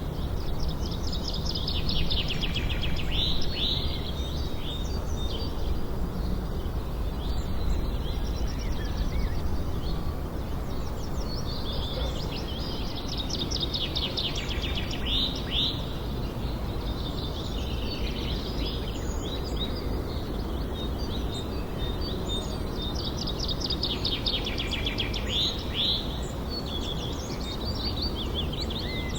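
Songbirds singing in repeated trilling, chirping phrases that come and go every several seconds, over a steady low background noise of an outdoor nature ambience.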